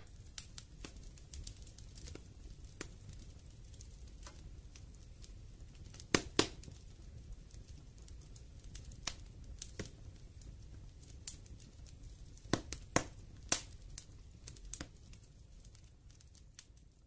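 Faint crackle of scattered sharp clicks over a low hum: recording noise in the gap between two songs. It thins out near the end.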